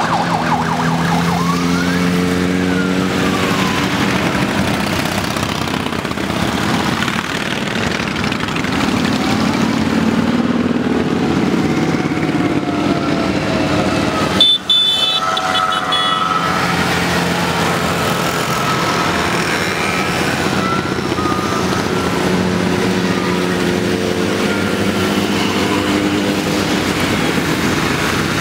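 Many motorcycles riding past one after another, their engines running and rising and falling as each goes by, with a siren wailing near the start. There is a brief high-pitched blast about halfway through.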